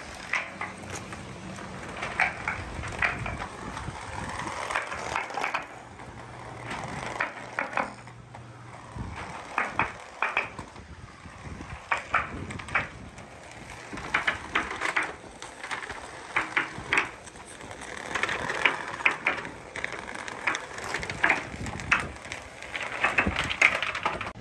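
Small balls rolling one after another down a long clear pipe, a steady rumble broken by frequent sharp clacks as they knock along its walls.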